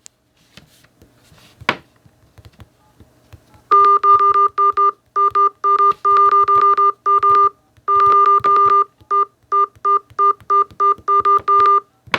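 Electronic phone beeps at one unchanging pitch, about two dozen short beeps of uneven length starting about four seconds in, preceded by a single click.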